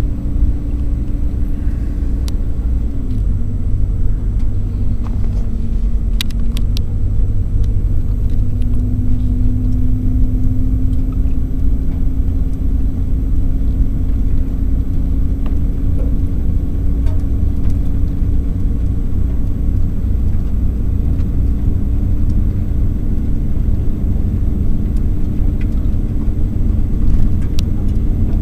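Steady engine and road rumble heard inside a moving pickup truck's cab, with a low hum whose pitch shifts slightly.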